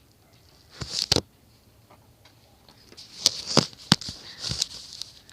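Rustling with several sharp clicks and knocks, a pair about a second in and a cluster from about three to five seconds in.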